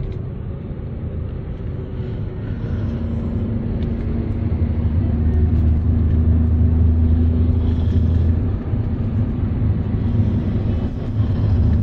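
Road and engine noise heard from inside a moving car's cabin: a steady low rumble that grows louder over the first few seconds.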